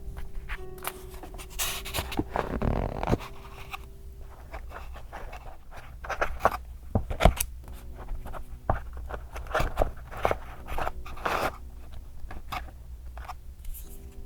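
Paper and journaling materials handled close to the microphone: rustling and scraping with scattered light taps and clicks, and one longer scrape about two to three seconds in.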